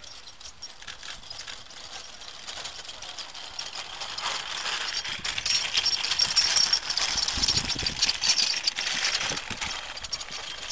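A canvas stretcher carrying a dummy being dragged over grass by a harnessed medical-service dog: a rustling, scraping swish of grass and cloth. It grows louder about four seconds in, is loudest around the middle, then eases off.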